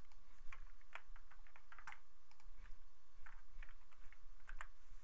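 A dozen or so scattered clicks of computer keyboard keys and mouse buttons at an irregular pace, over a steady low hum.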